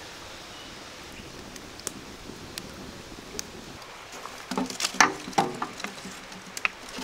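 Wood fire crackling in a steel mangal grill: a steady hiss with scattered sharp pops. From about four and a half seconds in come louder knocks and clatter as the burning wood and coals are poked with a stick.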